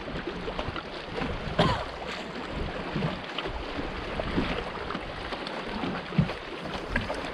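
Water lapping and wind noise around a small fishing boat, with a few light knocks: a sharp one about a second and a half in and another about six seconds in.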